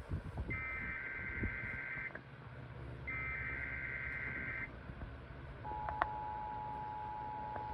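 Emergency Alert System SAME data bursts, two buzzy digital tone bursts about a second apart, followed near the end by the steady two-tone EAS attention signal starting up.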